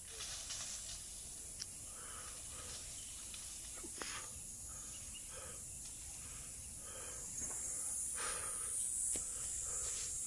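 Steady high-pitched insect chorus, with faint rustling and a few light clicks.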